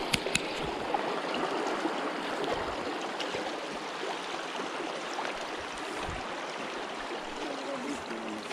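Shallow creek water flowing and rippling under and around logs, a steady rushing sound; a couple of sharp clicks right at the start.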